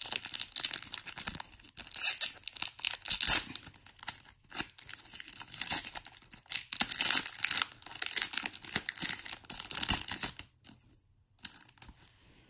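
Foil Pokémon booster pack wrapper being torn open at its crimped seal and crinkled in the hands, in irregular rustling bursts that stop about ten seconds in.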